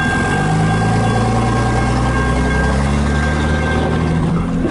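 An engine running steadily at low revs, its low hum shifting pitch a little about half a second in and again around three seconds, with a thin steady high tone above it.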